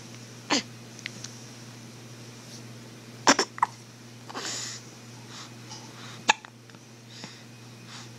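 Hiccups: a sharp, short hiccup about half a second in, another cluster around three seconds in, and one more about six seconds in, roughly three seconds apart.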